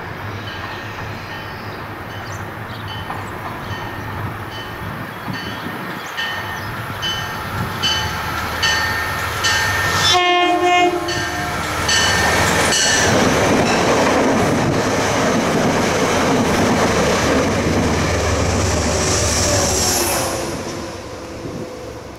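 Metro-North push-pull train led by a Bombardier Shoreliner cab car, with wheels clicking rhythmically over rail joints as it approaches. Its horn sounds one short chord about ten seconds in, and then the train rumbles past loudly before fading near the end.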